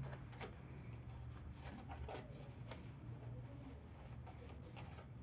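Faint soft rubbing and light scratchy taps of a makeup brush working contour powder, a few small clicks scattered through, over a low steady room hum.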